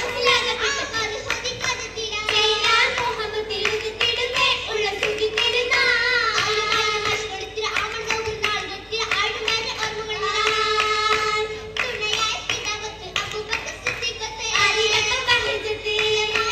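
Oppana: a group of schoolgirls sings a Mappila song to sharp rhythmic hand-clapping in unison, over a steady held note.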